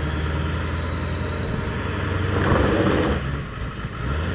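Pickup truck engine running steadily under load as it pulls on a tow strap, swelling louder for about a second around two seconds in.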